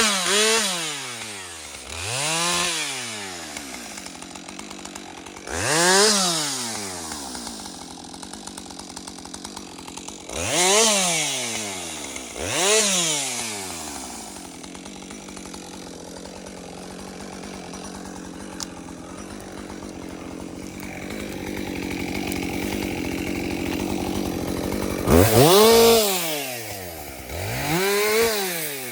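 Chainsaw engine revved up and dropped back to idle about seven times, in quick rises and falls of pitch, idling in between.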